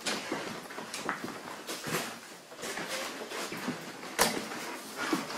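Rustles and knocks of someone pushing through a door in the dark, with a sharp click a little past four seconds in.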